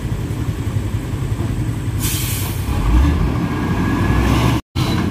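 Heavy diesel dump truck engine running with a steady low rumble. A hiss of air brakes starts about two seconds in, and the engine gets louder about a second later as it takes load. The sound drops out abruptly for a moment near the end.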